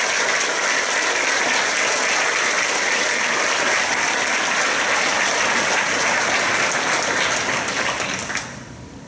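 Audience applause, steady and dense, then dying away about eight seconds in.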